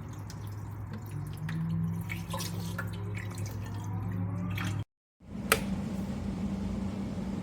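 Electric gooseneck kettle with water in it: a steady low hum with small scattered ticks and drips. The sound drops out briefly about five seconds in, then comes back with one sharp click.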